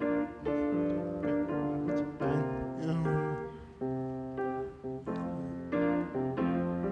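Upright piano playing a chordal accompaniment, notes struck together and fading, one chord after another.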